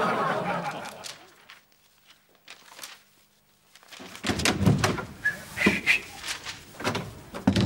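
Studio audience laughter dying away in the first second. After a short hush, a door opens about four seconds in, followed by a run of knocks and thumps as someone comes into the room.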